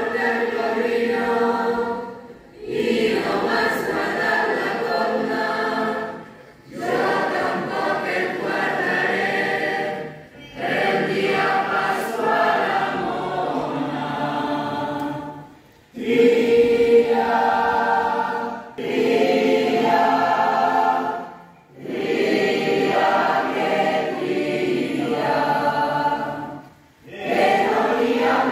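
A large group of voices singing together, phrase after phrase, with a short break between phrases every four to six seconds.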